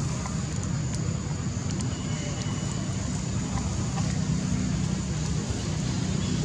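Steady low rumble of outdoor background noise, with a faint steady high hiss above it and an occasional faint short chirp.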